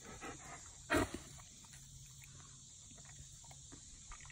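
Dog's mouth noises: short wet smacks and licks of the lips after eating watermelon, with one louder short sound about a second in.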